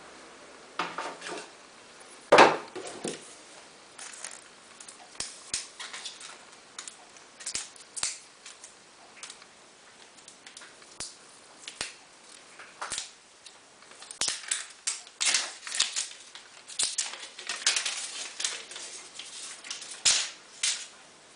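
Handling noise from a smartphone and its packaging: scattered small clicks, taps and brief rustles. There is a louder knock about two and a half seconds in, and the clicks come in quicker clusters from about fourteen seconds on.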